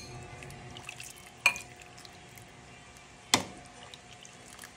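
Two sharp clinks, about two seconds apart, of a utensil against dishware, with faint dripping of soup between them.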